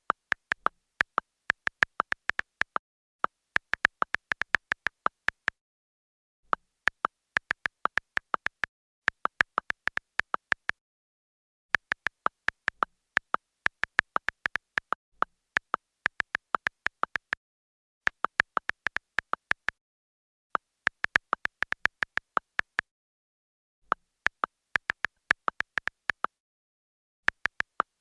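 Phone keyboard typing clicks while texting: rapid, short, high clicking taps in runs of a few seconds, with brief pauses between runs.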